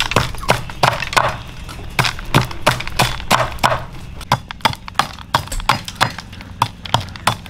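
A rapid, irregular series of sharp knocks and clicks, about three or four a second, mixed with a few short scraping sounds.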